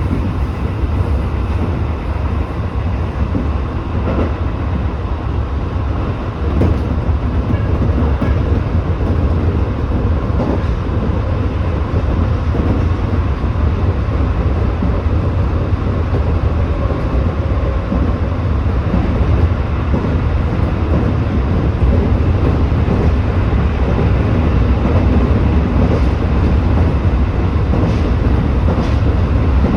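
Running noise of a Tobu 8000-series electric train at speed between stations: a steady low rumble of wheels on track, with occasional faint clicks.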